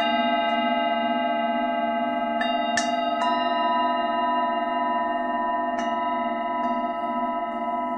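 Several Tibetan singing bowls ringing together in overlapping, sustained tones, the low ones wavering slowly. Fresh strikes land three times in quick succession about two and a half seconds in, then again near six and just before seven seconds.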